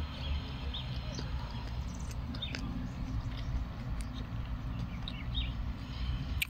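Small birds chirping now and then in short high calls over a steady low rumble.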